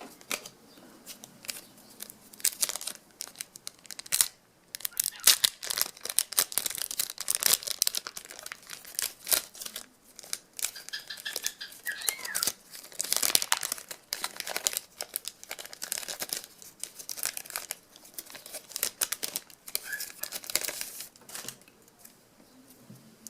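Football trading-card pack wrappers crinkling and tearing as packs are ripped open, in quick irregular bursts with a brief pause about four seconds in.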